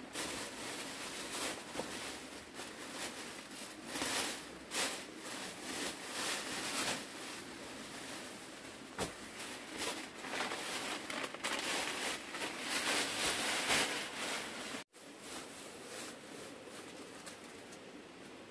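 Thin plastic shopping bags crinkling and rustling in irregular bursts as goods are taken out of them and handled. There is a sudden brief break about fifteen seconds in, after which the rustling is softer.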